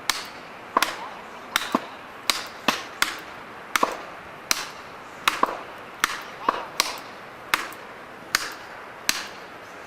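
A steady run of sharp chopping blows on wood, roughly one every three-quarters of a second, some landing in quick pairs.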